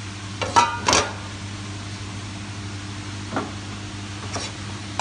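Kitchen clatter of utensils on a prep table: two sharp, ringing clinks a little under a second in, then two softer knocks later, over a steady low hum of kitchen equipment.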